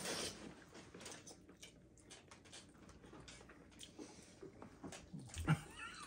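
Faint scattered wet clicks, smacks and squelches of jello being scooped and slurped by hand and mouth, with a brief low voiced grunt about five and a half seconds in.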